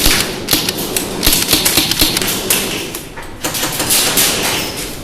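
Airsoft guns firing in rapid bursts: a dense, loud clatter of clicks and knocks that comes in clusters throughout.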